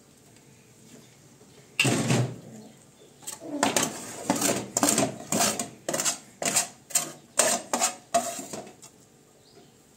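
A loud metal clank about two seconds in. Then a metal spatula scrapes back and forth across a wide, shallow metal pan of fried food in a quick, even run of strokes, about two to three a second, before stopping near the end.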